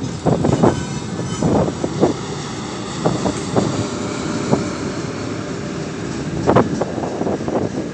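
Ermak freight electric locomotive passing close by: a steady rumble of wheels on rail, broken by irregular sharp clacks, the loudest about six and a half seconds in.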